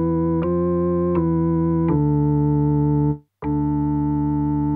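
Electronic keyboard music: sustained chords that change every second or less, with a brief break about three seconds in.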